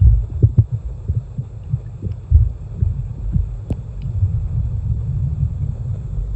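Muffled low rumbling and irregular thumps of water moving around a camera held underwater in a koi pond, with the thumps thinning into a steadier rumble after about halfway.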